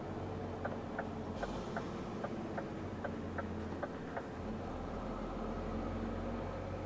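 Truck's turn-signal indicator ticking about two to three times a second over the steady hum of the engine in the cab, the ticks stopping about four seconds in.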